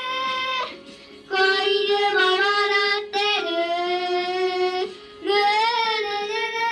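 Background music: a song sung by a high, child-like voice, long held notes in phrases broken by short pauses about a second in and again about five seconds in.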